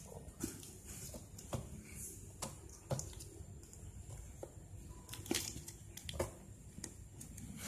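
Faint scattered taps and scrapes, about seven of them at uneven intervals, as a baby's hands handle a flat piece of cardboard on the floor.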